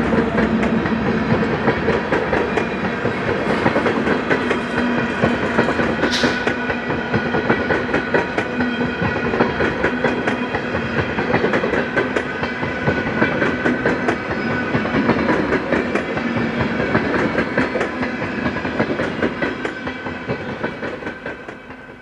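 Freight train of covered hopper cars rolling past: a steady rumble of wheels on rail with a fast run of clicks over the rail joints. A brief high squeal comes about six seconds in, and the sound drops away near the end.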